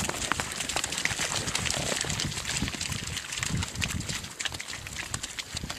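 Herd of yaks at a watering place: low, irregular grunting, with scattered clicks and splashes of hooves in mud and water.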